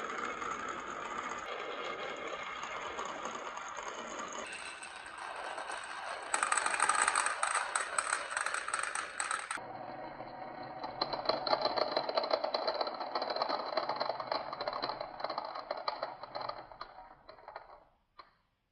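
Many marbles rolling and clattering down a wooden marble run as a steady rattle, changing abruptly several times and loudest a third of the way in. It fades out near the end.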